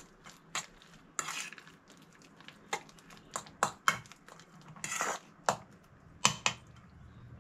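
A metal spoon clinking and scraping against a stainless steel bowl while mashing ripe bananas: irregular clinks, with two longer scrapes about a second in and about five seconds in.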